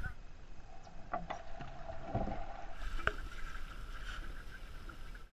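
Wind buffeting the microphone, with faint water sounds and a few light taps; it cuts off suddenly near the end.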